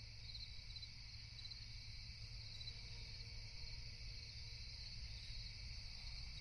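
Faint crickets chirping in small repeated trills over a low steady hum.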